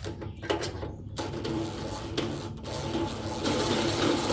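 Power drill running steadily, drilling into sheet metal, starting about a second in after a few handling clicks and getting louder toward the end.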